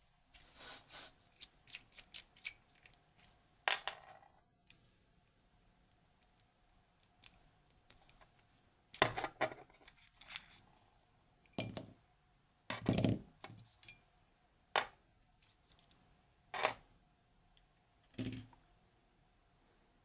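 Small metallic clicks and knocks from handling a Kaba Gemini S lock cylinder and metal tools as its disassembly begins. They come scattered, with a quiet stretch in the middle and several louder knocks from about nine seconds in.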